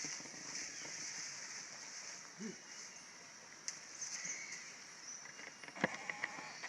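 Outdoor background with a steady high hiss, a short low call that bends up and down about two and a half seconds in, and a few sharp clicks near the end.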